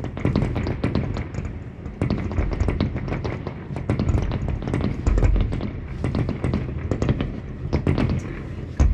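Fireworks display going off in rapid succession: dense crackling pops, with deeper booms about five seconds in and near the end, heard from indoors.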